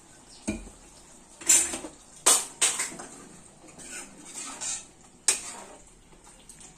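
Steel ladle stirring gravy in a metal kadhai, clanking sharply against the pan several times with softer scrapes in between. A dull knock comes about half a second in as a small steel vessel is set down.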